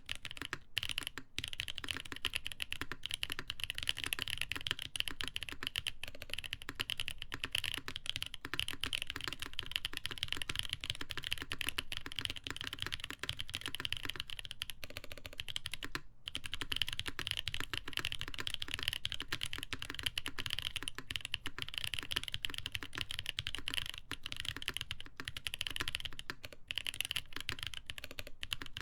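Steady typing on a mechanical keyboard with lubed Boba U4T tactile switches, a polycarbonate plate and Cherry-profile ABS doubleshot keycaps: a dense run of keystroke clacks with a couple of brief pauses.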